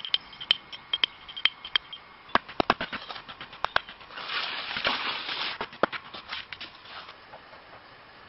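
Sharp snaps and knocks of sticks and wood being handled, with a rustle of leaves and branches about four to six seconds in.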